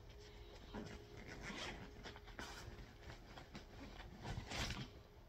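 Faint rustling and rubbing of a fabric backpack and the things inside it as a hand rummages through the pocket, with a louder rustle about four and a half seconds in.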